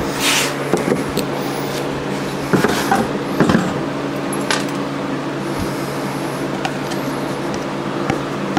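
Plastic parts being handled: light clicks and knocks of a plastic rod holder against a plastic milk crate with a corrugated plastic floor board, a handful in the first half, over a steady hum.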